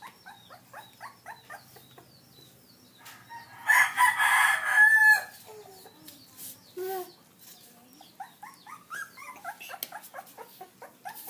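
Puppies giving short high squeaks and yips, several a second, as they wrestle. About four seconds in there is a louder call lasting about a second and a half.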